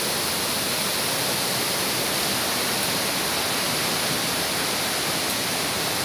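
Rushing river water cascading over rocks: a steady, even rush of white water.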